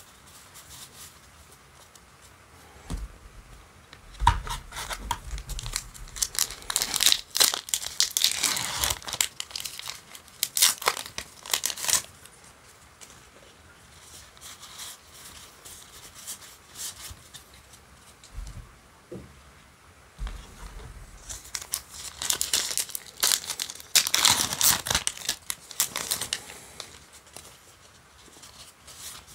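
Foil booster pack wrapper crinkling and tearing open in two bouts of loud rustling, with quieter handling of cards between.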